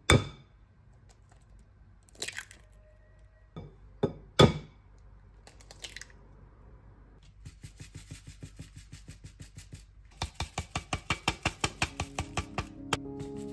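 Eggs knocked against the rim of a glass mixing bowl: a few sharp cracks, the loudest about four seconds in. Then a packet of dried marjoram is shaken over the bowl in a quick steady run of taps, louder over the last few seconds at about four a second.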